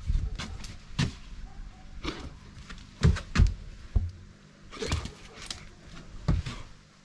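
A Saint Bernard moving about close to the microphone: irregular short rustles and thumps, a dozen or so, some louder than others.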